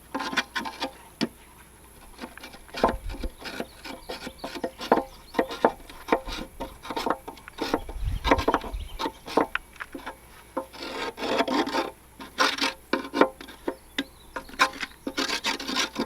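Irregular scraping and rasping strokes with sharp clicks against the underside of an upturned zero-turn mower deck, typical of hand-scraping caked, gummy grass buildup off the steel.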